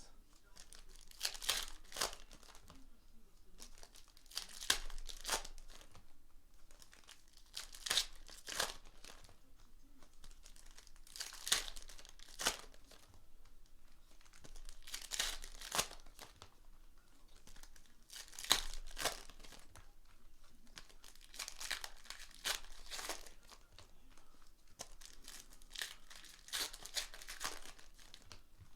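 Trading-card pack wrappers being torn open and crinkled by hand, crackling on and off in irregular spells.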